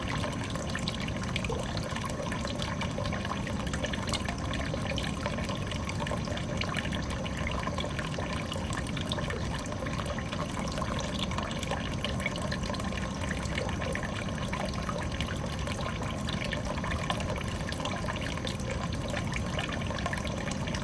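Water falling and trickling steadily into a small biotope pond, a continuous splashing with no pauses.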